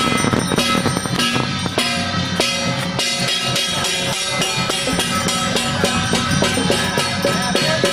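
Temple procession drum-and-percussion music playing loud and steady: dense, fast drum strokes over a few held notes.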